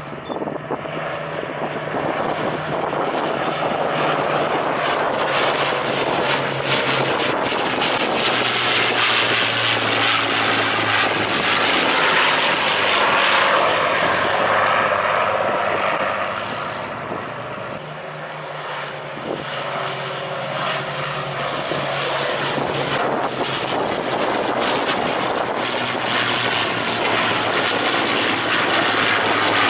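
Propeller-driven aircraft engine noise from a fly-by. It swells loud, eases off about eighteen seconds in, then builds again.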